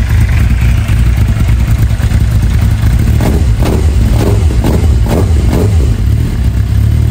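2009 Suzuki GSX-R750's inline-four engine running rough and loud through a near straight-piped Yoshimura exhaust, with a run of short surges about twice a second in the middle. It is the poor idle of a bike that will not stay running, which the owner traces to wet, fouled spark plugs and corroded coil packs.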